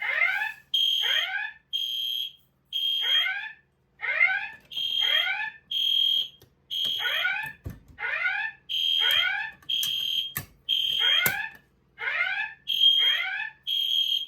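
Fire alarm horn-strobes sounding the evacuation alarm: short, loud, high steady tone bursts alternating with short sweeping tones in a fast repeating pattern. A few sharp knocks come through about halfway through.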